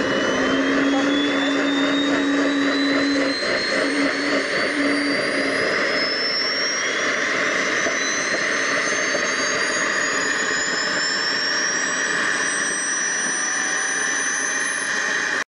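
Twin model jet turbines of a radio-controlled MiG-29 spooling up at start: a high whine rises steadily in pitch over a constant rushing hiss, and a second rising whine joins about six seconds in as the other turbine comes up.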